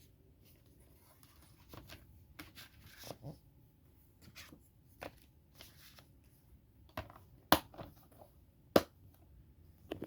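A DVD case and its packaging being handled: scattered rustles and light clicks, then two sharp plastic clicks a little over a second apart in the second half.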